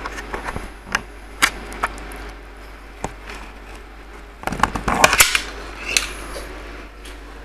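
Metal ladle knocking and scraping against the sides of a saucepan of soup while stirring and scooping: scattered sharp clinks, then a quicker burst of clatter about four and a half seconds in.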